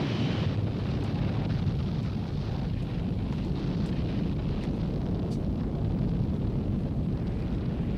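A steady, dense low rumbling roar with no clear pitch, holding at an even level throughout.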